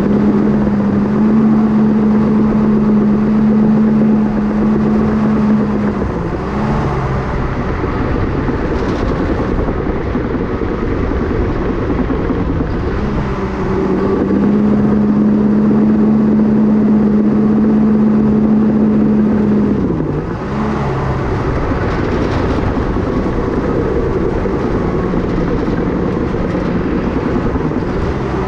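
Cat D5K bulldozer's diesel engine running steadily under load while pushing dirt and rock. The engine note rises a little in two stretches and dips briefly twice, about six seconds in and again near twenty seconds.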